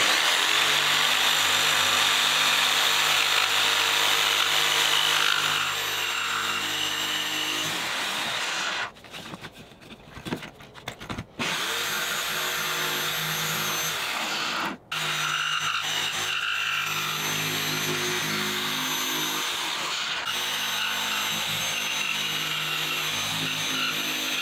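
DeWalt corded jigsaw cutting plywood along a curved template line, its motor running steadily. It stops for about two seconds a little under halfway through and for a moment about fifteen seconds in, then starts cutting again.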